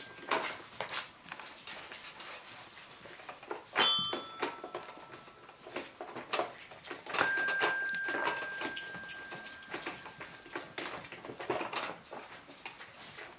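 Children's electronic toy keyboard sounding two chime-like notes as puppies tread on its keys, one about four seconds in and a longer one about seven seconds in that holds for several seconds. Throughout, puppy paws and claws click and scuffle on a tile floor.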